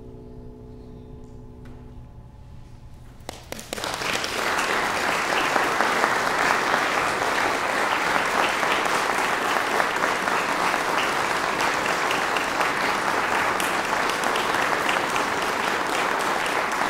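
The last notes of a baroque lute ring and die away. About three and a half seconds in, an audience breaks into steady applause.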